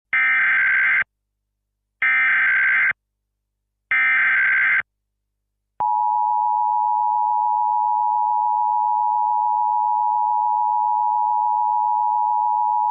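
Emergency Alert System SAME header: three bursts of warbling data tones, each about a second long and a second apart, then the steady two-tone EAS attention signal starting about six seconds in, the signal that an emergency message is about to follow.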